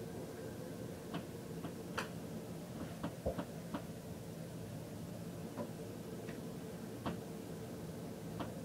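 Faint, irregular clicks and small knocks from a baby moving about in a crib, over a steady low hum.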